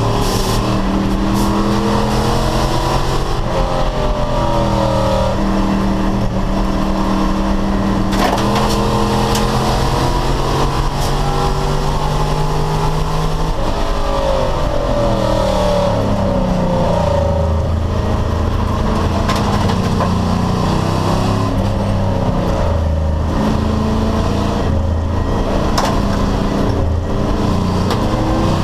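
Race car engine under load, recorded onboard, holding steady revs for a long stretch. About halfway through the pitch drops and climbs again, with revs changing through corners and gear changes.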